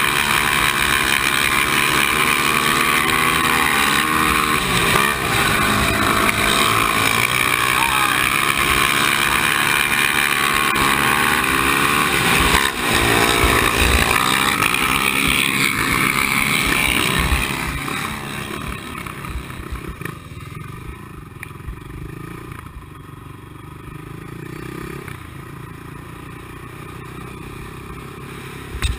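Honda TRX450 quad's single-cylinder four-stroke engine at race pace on a dirt flat track, revving up and down through the turns. About eighteen seconds in it falls off to a much quieter, low running.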